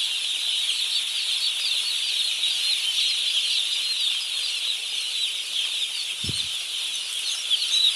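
A large flock of broiler chicks in the brooder peeping all at once: a dense, steady chorus of high, short cheeps.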